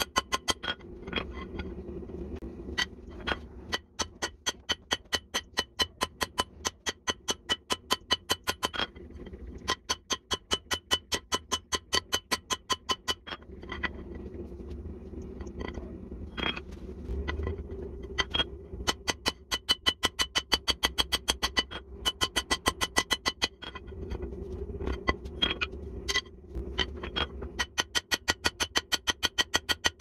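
Hand hammer striking a red-hot jackhammer bit on a steel anvil, forging a hardy shank. The blows come in quick, even runs of about three a second, each with a bright anvil ring. The runs are broken by a few pauses filled with a low rumbling noise, with a few single heavier blows.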